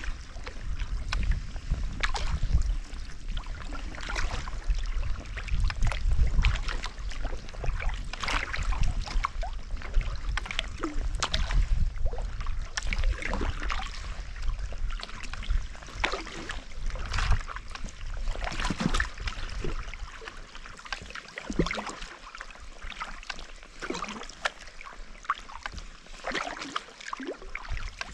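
Sea kayak paddling on calm sea water: the paddle blades dip and pull with repeated light splashes and drips, and water trickles along the hull. A low rumble sits under the first two-thirds and drops away after about twenty seconds.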